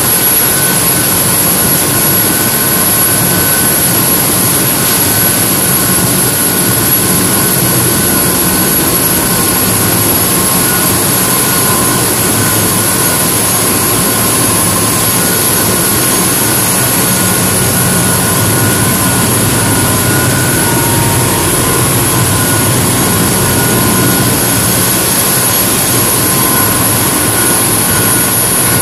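Loud, steady machinery noise of a crew boat's diesel engines running underway, heard inside the engine spaces, with several steady whining tones over the din.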